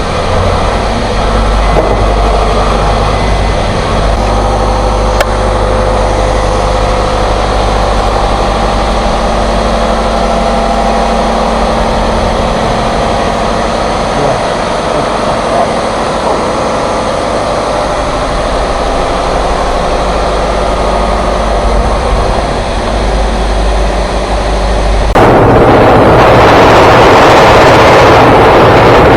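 An engine running steadily for most of the stretch. Near the end a much louder rushing noise abruptly takes over.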